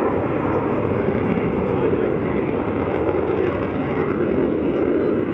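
F-35 fighter jet flying a display pass, its engine making a steady, loud rush of noise with most of its weight low down.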